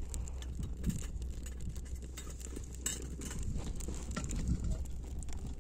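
Twig fire crackling in a small folding wood-burning camp stove: scattered sharp pops and ticks over a low steady rumble.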